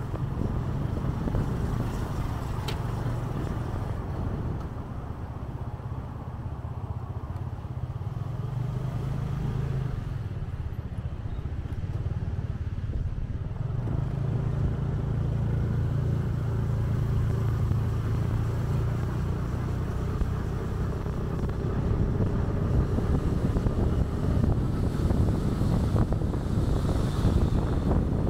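Motorcycle engine running under way, a steady low hum that eases off for a few seconds in the first half and picks up again, over road and air noise.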